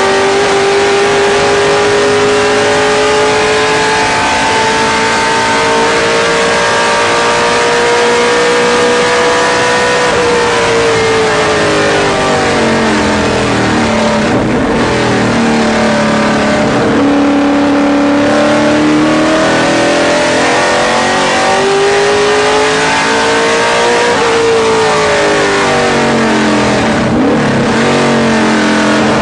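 Ford Mustang race car's engine heard from inside the cockpit at full racing pace. It climbs steadily in pitch for about ten seconds, falls away for several seconds, then rises and falls twice more, over steady wind and road noise.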